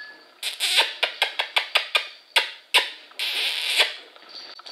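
A quick run of about a dozen short, sharp clicks over a couple of seconds, then a brief hiss a little after three seconds in.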